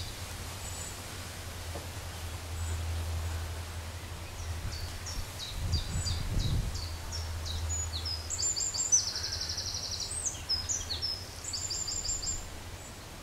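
A songbird singing a run of short, high, descending notes, with a fast trill about eight to ten seconds in, over a low steady rumble and a soft thump near the middle.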